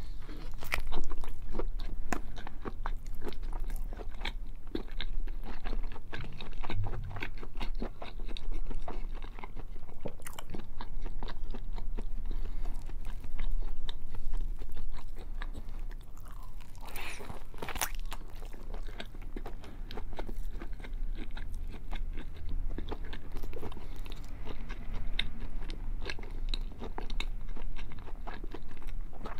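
Biting and chewing a thick slab of bacon, a dense run of small mouth clicks and smacks, with one louder, longer noise about 17 seconds in.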